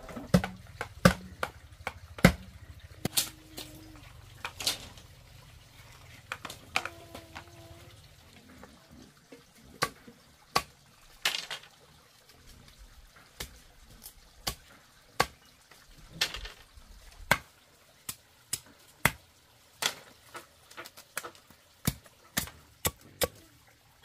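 Machete blade chopping bamboo against a wooden chopping block: irregular sharp knocks, about one or two a second, as bamboo is cut into strips.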